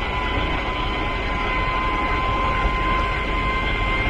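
Outboard motor of a MacGregor 26X sailboat running steadily at low harbour speed, a constant drone with a thin steady whine over it.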